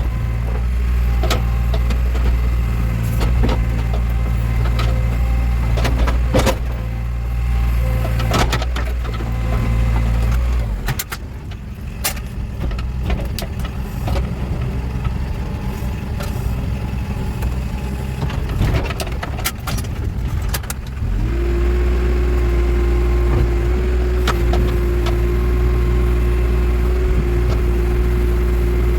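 Backhoe loader's diesel engine running steadily under work, with scattered knocks and clanks. About eleven seconds in the engine drops lower; about twenty-one seconds in it comes back up, now with a steady whine on top.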